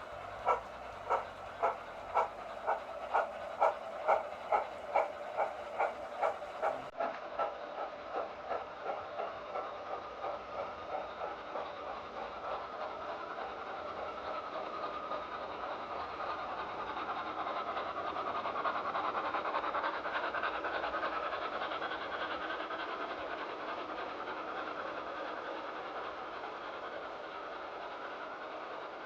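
Steam locomotive exhaust chuffing as it pulls away, the beats quickening from under two a second until they run together into a steady rush about halfway through.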